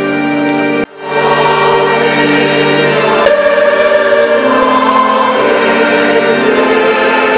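Choir singing a liturgical hymn with organ accompaniment, in long held notes. The sound drops out briefly about a second in, at an edit, then resumes.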